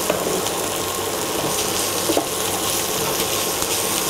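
Onion, garlic and ginger in Schezwan sauce sizzling in oil in a frying pan, stirred with a spatula, with a couple of light scrapes against the pan.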